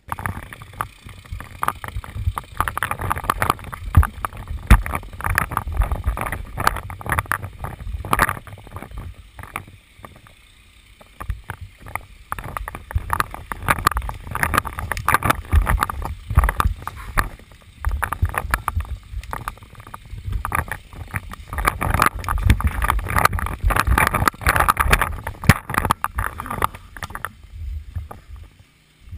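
Quick footsteps crunching and rustling through dry leaf litter, twigs and grass, with wind and handling rumble on the head-mounted camera's microphone; the steps ease off briefly about ten seconds in.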